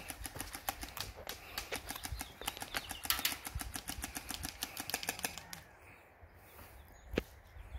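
Airsoft guns firing: a rapid run of sharp, dry clicks, several a second, that stops about five and a half seconds in, followed by a single sharp knock near the end.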